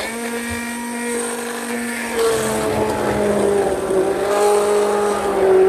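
Philips hand blender's motor running while submerged in a pan of cooked vegetable soup, puréeing it: a steady whine whose pitch drops slightly and gets louder about two seconds in.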